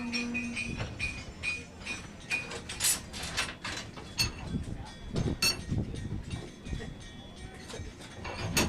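Irregular metal-on-metal clinks and knocks from blacksmithing tools at an anvil, a few sharp strikes ringing briefly, with faint voices in the background.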